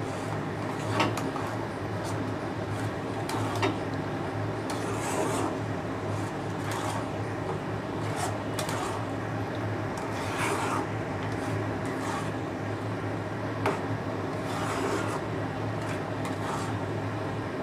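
Flat spatula stirring and scraping boiled soybean paste around a non-stick pan as it cooks down: repeated rasping strokes, roughly one every second or two, with a few sharper clicks of the spatula on the pan, over a steady low hum.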